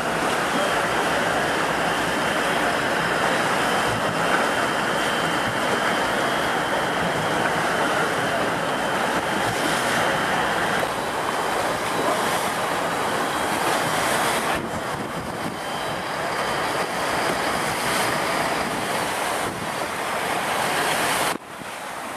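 Wind buffeting the microphone over the steady wash of the open sea, with no distinct engine or voice standing out. The noise changes suddenly a few times, dropping sharply near the end.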